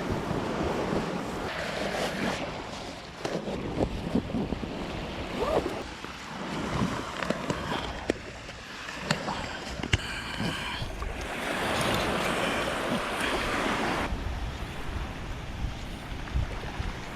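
Sea water washing and lapping, with wind buffeting the microphone and a few light knocks.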